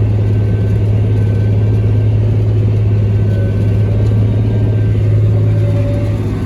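Tractor engine running steadily with a strong, even low drone, as when pulling a disc across the field.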